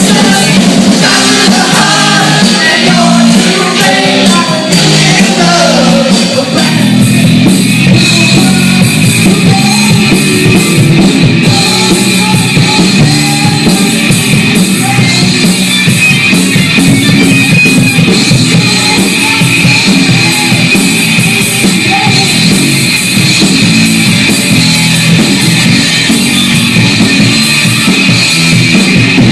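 Rock band playing live: drum kit, electric guitars and singing, loud throughout, the sound growing fuller about six seconds in.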